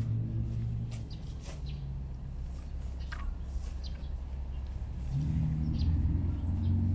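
A person burping: long, low, drawn-out burps, one tailing off in the first second or so and another starting about five seconds in. Birds chirp in the background.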